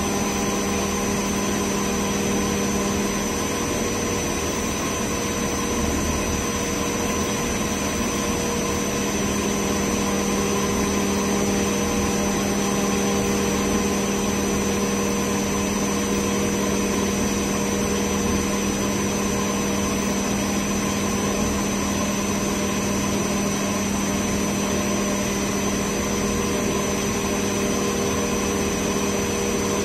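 MultiCam 5000-series CNC router milling 3/4-inch aluminum plate with a 1/2-inch single-flute (O-flute) spiral bit: the spindle and cutter run steadily with an even, unbroken tone and a constant cutting noise.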